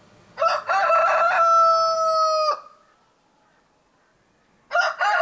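A rooster crowing twice: each crow is a few short notes followed by a long held note that drops off at the end, the second crow matching the first exactly.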